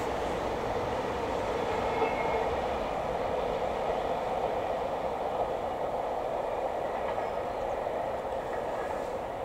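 Steady rumble of a steam-hauled passenger train, the LNER A3 Pacific Flying Scotsman and its coaches, running away from the listener into a tunnel.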